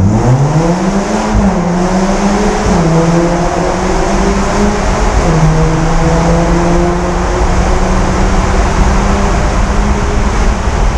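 Audi A4 B9 Allroad with a Revo Stage 2 tune, catless downpipe and custom Vibrant exhaust, accelerating hard at full throttle. The engine note rises steadily, and its pitch breaks and steps at gear changes about a second and a half in and again about five seconds in.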